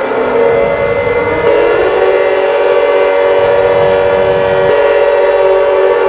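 Emergency alert siren alarm: loud, steady, several tones sounding together in a harsh chord, swelling a little stronger about a second and a half in.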